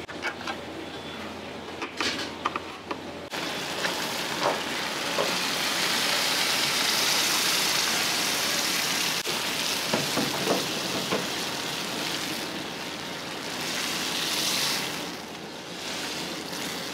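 Sauce sizzling in a hot wok as canned ketchup is poured into the oil and stirred with a metal ladle, the sizzle starting suddenly about three seconds in and swelling and easing, with a few sharp clinks of the ladle against the wok. Before that, quieter kitchen noise with a couple of metal clicks.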